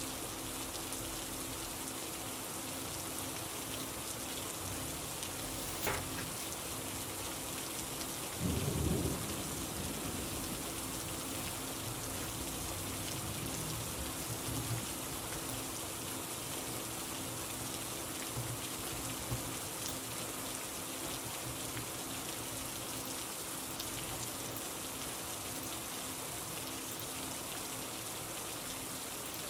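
Steady rain, with a brief low rumble of thunder about eight seconds in and a single sharp click shortly before it.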